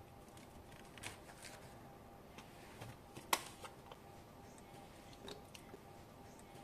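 Faint, scattered clicks and taps of kitchen utensils being handled, with one sharper click about three seconds in.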